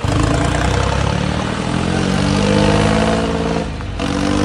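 Tractor engine running hard, its pitch climbing steadily over the first few seconds. There is a short break near the end, then the engine goes on again.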